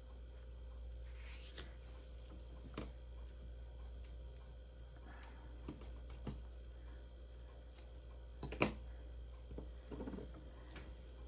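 Paper craft handling: scattered light taps and clicks of card stock, tape and scissors on a work table, the sharpest about eight and a half seconds in, over a low steady hum.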